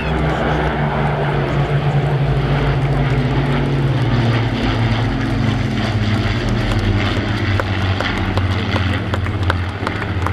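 Piston-engined WWII propeller aircraft flying past, the steady drone of its engines sliding slowly lower in pitch as it goes by.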